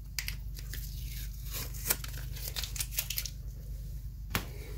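Blue painter's tape peeling and crinkling as a gasket is pulled free of it: a run of soft crackles and ticks, with a sharper tick about two seconds in and another near the end, over a low steady hum.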